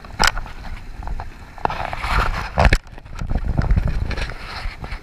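Close rustling and scraping against a GoPro Hero4 Silver's housing as the mesh of a landing net and the angler's sleeve brush over it. There are sharp knocks about a quarter second in and a louder pair about two and a half seconds in, over a low rumble.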